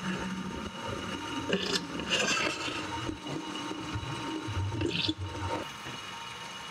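Bench drill press running steadily while a countersink is brought down lightly into drilled holes in an aluminium panel, deburring them. There are short scraping cuts about two seconds in and again about five seconds in.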